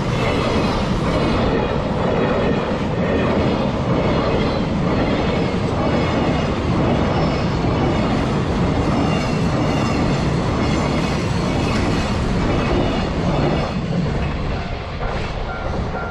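Freight train wagons rolling past, wheels clattering over the rail joints. The noise eases off about two seconds before the end as the train draws away.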